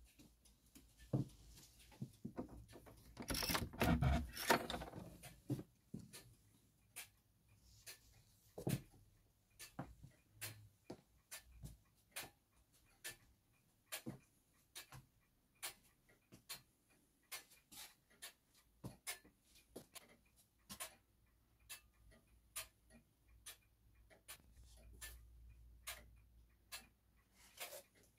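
Mechanical longcase clock ticking steadily, roughly once a second. A louder scuffing noise comes about three to five seconds in.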